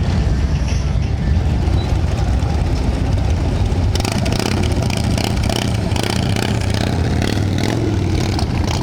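Motorcycle engines running with a steady low rumble; about four seconds in, a hissier, brighter noise joins abruptly.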